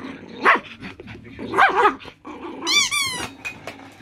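Poodle growling and giving short barks as it mouths and pushes a toy ball. About three seconds in, a quick run of warbling high squeals.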